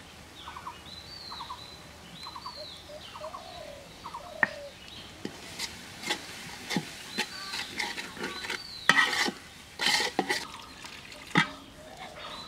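A metal ladle scraping and knocking on the inside of a large aluminium cooking pot while spices are stirred into onion paste, in uneven strokes that grow louder in the second half. In the first few seconds a bird calls repeatedly.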